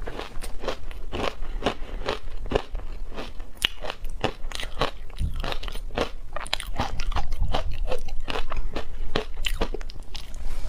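Close-miked crunching and chewing of shaved ice coated in matcha and milk powder: a rapid run of crisp crunches, several a second, growing louder in the second half.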